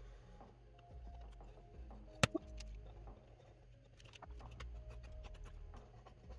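Mechanical pencil scratching lightly on paper as lines are traced over, in short strokes, with a sharp click about two seconds in. Faint background music underneath.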